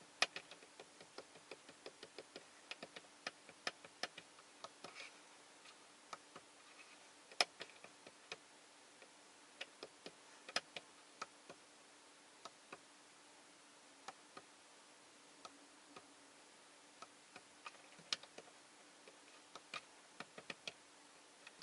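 Irregular, sharp clicks of the control buttons being pressed to scroll and enter values on a Toyota Innova Crysta's multi-information display. A few clicks are much louder than the rest, and a faint steady hum runs underneath.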